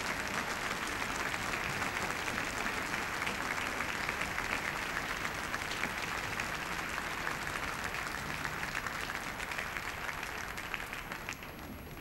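Crowd applauding: dense, steady clapping that slowly dies down near the end.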